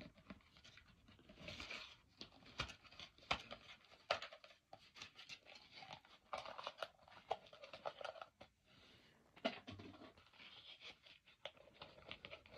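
Faint rustling and scratching of toy packaging being handled, with many small scattered clicks.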